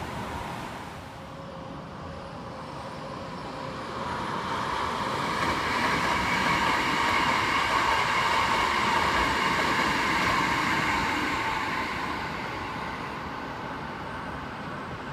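Maroon Hankyu Kyoto Line electric train passing by on the track. Its running noise and a steady whine swell from about four seconds in, are loudest in the middle, then fade away.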